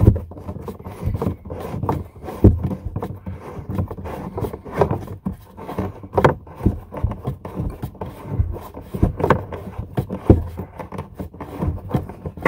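Hand unscrewing the nut of a hot-water supply line from a faucet tailpiece, with irregular scraping and knocking against the fitting and the cabinet.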